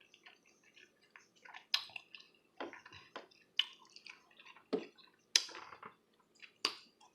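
Close-up wet chewing and mouth smacks of a person eating a hot dog, an irregular run of sharp, moist clicks with the strongest smacks about a second apart.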